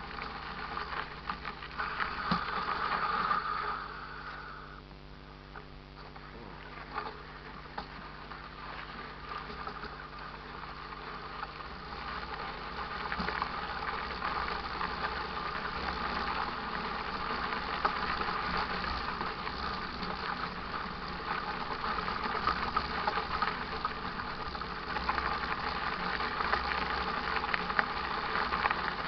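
Mountain bike rolling along a dirt trail: a steady rush of tyre noise with frequent small rattles and clicks from the bike.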